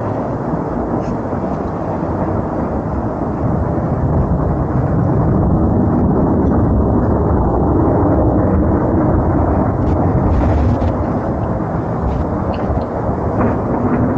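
Loud, continuous low rumbling from the sky, growing louder a few seconds in and easing a little near the end.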